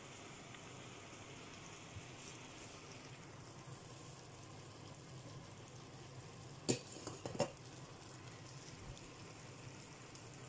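Faint steady sizzle of cabbage, carrot and ground meat frying in a pan, with two sharp knocks close together about two-thirds of the way through.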